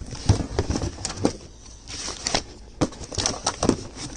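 Hands rummaging through a cardboard box of household goods: rustling with scattered light knocks and clunks as items are shifted and lifted out.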